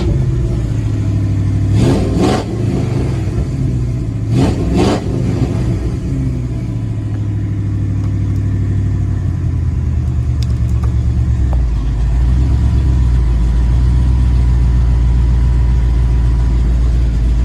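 1994 Ford F-150 engine revved briefly twice, then idling steadily. This is the rough idle the owner has not cured with new plugs, distributor cap, rotor, wires and injectors.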